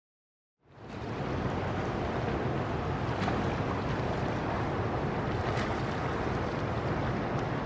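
Steady rushing of pool water with a low rumble, fading in just under a second in, with a few faint ticks.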